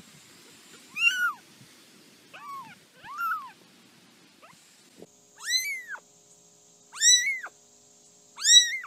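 Tiny kittens mewing: short, high-pitched mews that rise and fall. Three come in the first half, then three higher, evenly spaced mews about every one and a half seconds.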